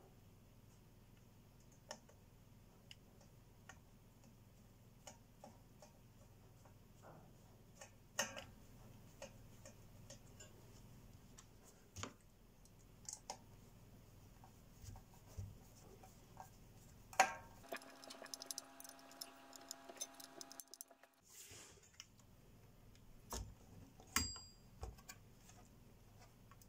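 Faint, scattered clicks and taps of a metal probe against the solder side of a Technics SU-V650 amplifier circuit board. About two-thirds of the way through comes a quick run of many small clicks, and near the end a few louder knocks as the board and its finned heatsink are handled.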